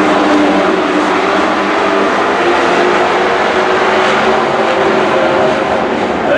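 Racing stock trucks' engines at full throttle on a dirt oval: a loud, steady drone of several trucks running close together.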